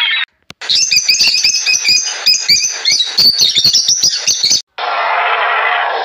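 Birds chirping in a dense run of short, high calls, with clicks among them. This stops abruptly shortly before the end, and a steady rushing noise takes over.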